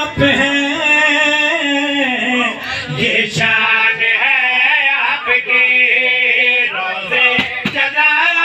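A man chanting a devotional Urdu qasida in a loud, melodic voice, drawing out long wavering notes.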